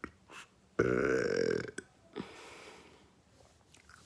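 A person's burp: one long, loud belch starting about a second in and lasting nearly a second, with a few faint mouth clicks around it.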